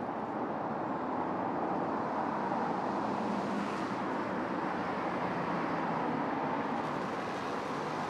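Steady background road-traffic noise, an even, continuous rumble of passing vehicles with no bird calls.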